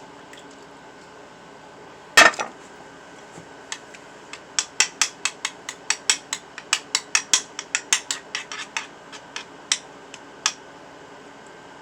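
One sharp knock about two seconds in, then a quick run of clinks, about three or four a second for some six seconds, of a utensil striking a dish while food is mixed.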